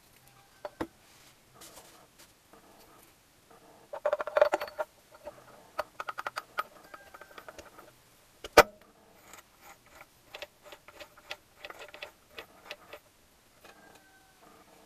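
Steel gears and shafts of a Gilera Sport 150 gearbox clinking and knocking against each other and the aluminium crankcase as they are fitted, with a quick run of clinks early on, one sharp metallic knock about halfway through, and light clicking after it.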